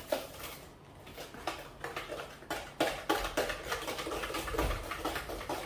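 A spoon stirring butter, sugar and eggs in a mixing bowl, with irregular clinks and scrapes against the bowl that come thicker and faster about halfway through.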